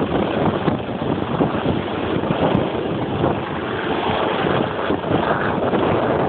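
Wind buffeting the microphone in an uneven rush of noise, over breaking surf.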